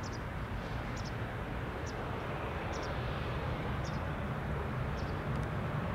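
Airbus A320-family airliner's turbofan engines giving a steady low rumble with a broad rushing noise as it rolls down the runway. A faint high chirp repeats roughly once a second.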